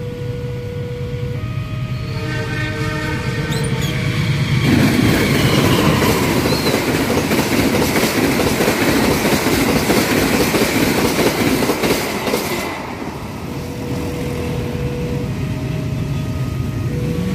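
Argo Muria passenger train sounding its horn, then rushing through the level crossing at about 120 km/h for around eight seconds: a loud rush of air with rapid wheel clatter over the rail joints, ending abruptly as the last carriage clears.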